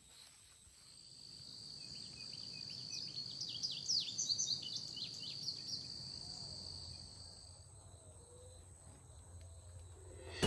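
Tropical outdoor ambience: an insect's steady high-pitched drone for several seconds, with a bird's quick chirping calls over it in the middle.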